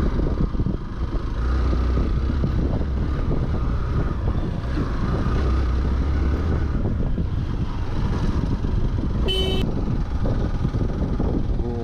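Hero Xpulse 200 motorcycle riding along at a steady pace, with a constant low rumble. A vehicle horn gives one short beep about nine seconds in.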